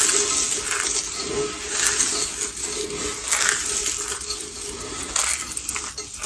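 Pink soap roses and soap curls being crushed: a continuous crisp crackling broken by repeated sharper crunches, about one every half second to a second.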